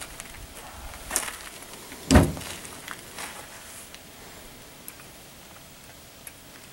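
Metal clicks and knocks of an AR-15 rifle being taken apart by hand, the upper receiver coming off the lower. One sharp knock about two seconds in is the loudest, with a smaller one about a second in and a few light clicks later.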